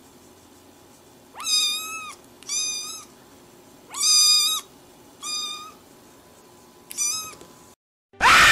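Kitten meowing: five high-pitched meows about a second apart, the third the loudest. Near the end a loud, noisy sound cuts in suddenly.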